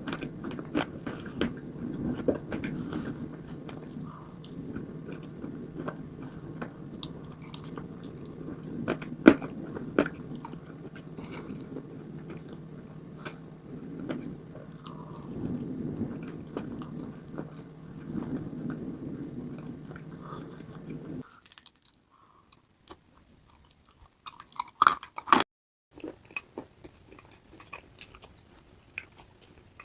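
Close-miked chewing of wet clay paste: steady wet mashing dotted with sharp crunches, which stops abruptly about two-thirds of the way through, followed by a few separate crunches and faint clicks.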